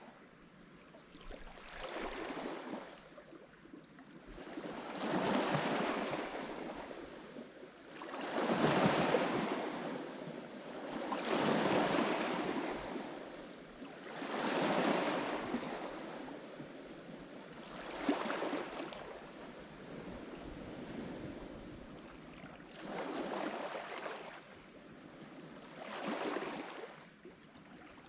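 Lake Michigan waves breaking on the shore, one rushing surge after another about every three seconds, each swelling and fading back.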